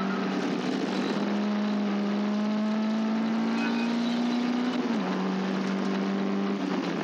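Caterham Seven race car's engine under full load, heard onboard. Its pitch climbs slowly as the car accelerates in one gear, then drops sharply at an upshift about five seconds in and holds steady, over a steady rush of noise.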